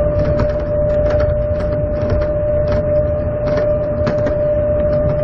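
Airport people-mover train running: a steady whine over a low rumble, with irregular clicks and rattles throughout.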